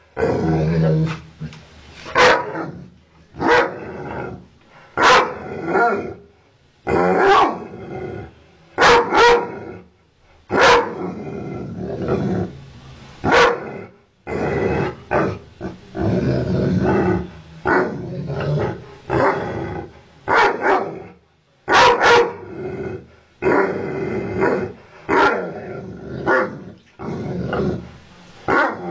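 Ovcharka-mix dog barking in loud, sharp barks every second or two, with growling in the longer stretches between them.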